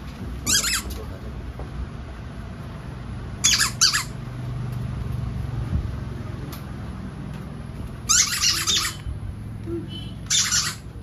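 Squeaky rubber dog toy squeezed by hand, giving short shrill squeaks in four bursts a few seconds apart.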